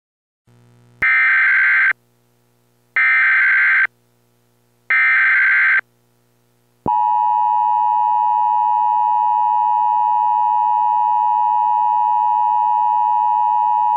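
Emergency Alert System SAME header: three bursts of warbling digital data tone, each about a second long with a second's gap between them. About seven seconds in, the steady two-tone EAS attention signal begins.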